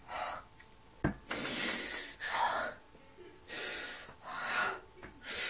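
A man's loud, breathy gasps through clenched teeth, six or so in a row, with a sharp click about a second in.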